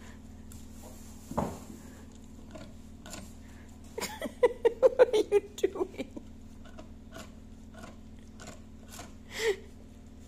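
A corgi gnawing and mouthing at a wooden firewood crate: scattered clicks and scrapes of teeth on wood, with a quick run of about ten loud bites about four seconds in. A steady low hum lies underneath.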